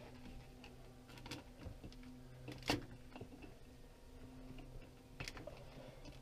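A few faint sharp clicks and taps from a plastic peel-and-stick mosaic tile sheet being handled and pressed onto a wall, the loudest about halfway through, over a faint steady hum.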